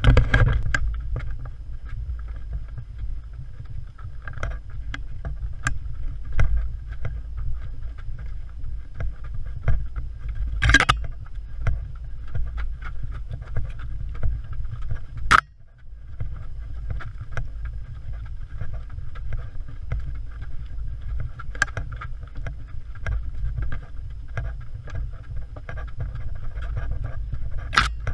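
Steady low rumble of wind and movement on a body-worn action camera during a trail run, with scattered knocks from footfalls and the camera jolting. A sharp click and a brief drop in level come about halfway through.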